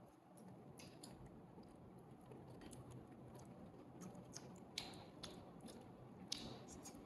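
Faint chewing by a baby macaque eating fruit: scattered small wet clicks and smacks, with two sharper clicks in the second half.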